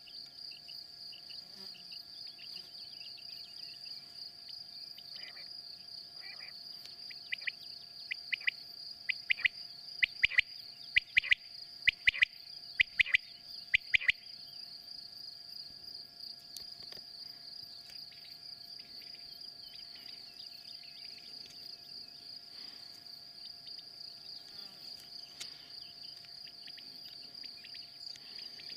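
Female quail calling: a run of short, sharp call notes about two a second, from about seven to fourteen seconds in, growing louder toward the end of the run. A steady high cricket trill continues underneath.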